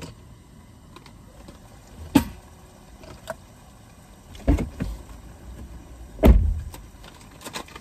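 A handful of separate dull thumps and knocks, about five, from things being handled and set down inside a car cabin. The loudest comes a little past six seconds.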